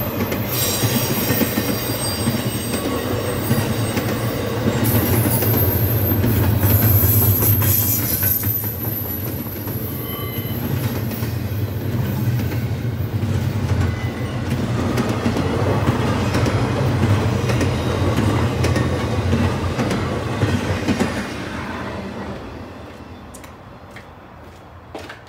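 Norfolk Southern intermodal freight train's cars rolling past on steel wheels, a dense rumble with clicking over the rail joints and a thin high wheel squeal for a few seconds in the first third. The sound fades away over the last few seconds as the end of the train passes.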